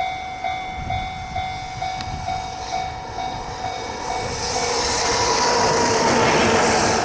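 Level-crossing warning bell dinging about twice a second, then a JR Freight train hauled by an EF210 electric locomotive approaching and passing over the crossing, its rushing noise swelling to the loudest in the second half and drowning out the bell.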